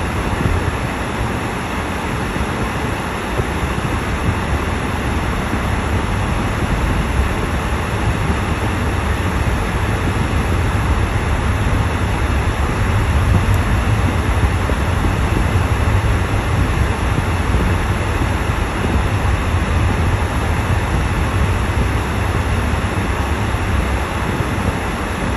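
Steady cabin noise of a car driving on a snow-covered road: a low rumble of tyres and engine with an even hiss above, swelling slightly midway.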